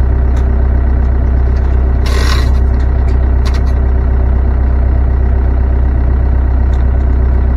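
Homemade cylinder machine's power unit running with a steady low hum. A few metallic clinks and a brief hiss about two seconds in.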